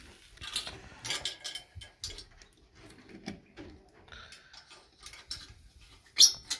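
Irregular clicks, taps and rustling, with one sharp, loud knock about six seconds in.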